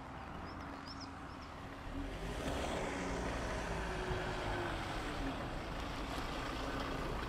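A motor vehicle's engine running, with a steady low rumble that grows louder about two seconds in and then holds.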